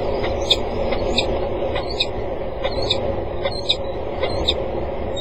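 Peregrine falcon giving a series of short, sharp, high calls, about one every second, over a steady low rumble.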